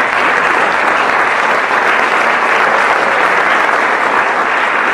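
Applause from a theatre audience and the performers on stage, many hands clapping at a steady level.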